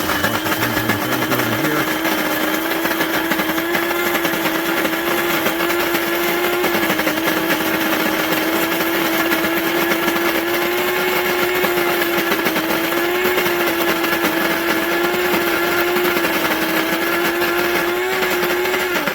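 Aiheal electric burr coffee grinder running a grind cycle. Its motor hums steadily while the burrs crush coffee beans with a dense grinding noise, and the pitch wavers slightly.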